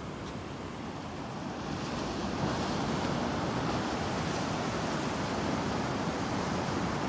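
Ocean surf breaking and washing up a sandy beach, a steady rushing noise that grows louder about two seconds in.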